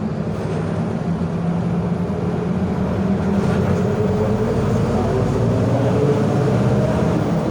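Mercedes-Benz OF 1721 bus's OM924LA 4.8-litre four-cylinder diesel running under way, with a whine above the engine note that grows louder and rises slightly in pitch about halfway through as the bus picks up speed. The whine is the growl of the bus's noisy differential.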